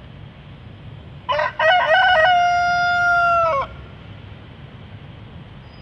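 A rooster crowing once, about a second in: two short choppy notes, then one long held note that drops in pitch as it ends.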